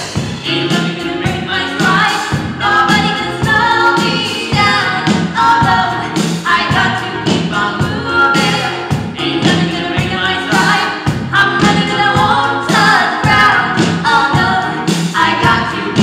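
Pantomime cast singing an ensemble song together over backing music with a steady beat.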